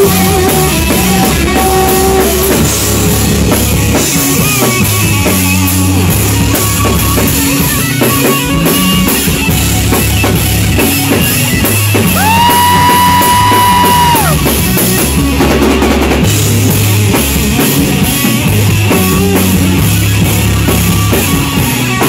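Live stoner rock band playing an instrumental passage: heavy guitar and bass riffs over a drum kit. About twelve seconds in, a single high note is held for about two seconds, sliding up into it and dropping away at the end.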